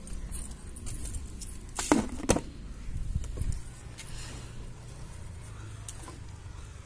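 Two sharp knocks close together about two seconds in, then a few softer knocks and rustling handling noise over a low rumble, as a hand-held phone is moved from a tub of picked tomatoes toward the plants.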